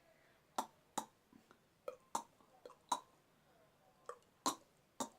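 Beatbox mouth clicks: a tongue clop followed by a second sharp click (the 'kol'), repeated in pairs about every second, the building blocks of a triple clop.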